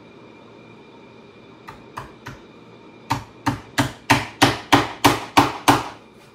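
Hammer driving small nails to fasten a saddle's seat strainer to the tree: three light tapping starts, then nine sharp blows at about three a second.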